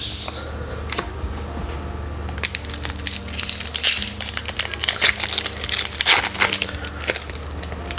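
A foil booster-pack wrapper being torn open and pulled apart by hand, crinkling and crackling in two busy spells, the first around the middle and the second a couple of seconds later.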